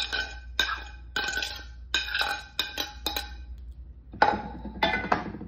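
Metal spoon clinking and scraping against a plate and a glass bowl as corn is knocked off into the salad, about two sharp clinks a second. Near the end come a few louder knocks of spoon on glass.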